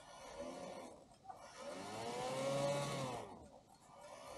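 Chiming train of a Mauthe hour-and-quarter clock movement running as it is let go to advance, its gears and fan fly whirring up and then slowing, twice: a short whir, then a longer one that rises and falls in pitch.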